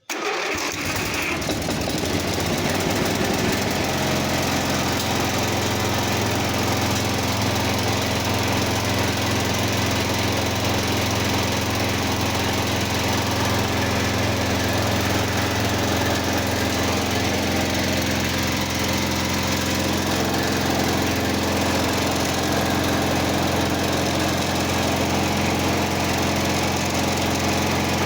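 Simplicity 4212 garden tractor's single engine coming in suddenly and settling within a few seconds into a steady run. It keeps running evenly after its restoration.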